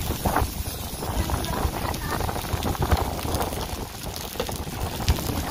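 Sausages, chicken and fish sizzling on a hot stainless-steel BBQ hotplate as cooking oil is poured over them, with wind buffeting the microphone.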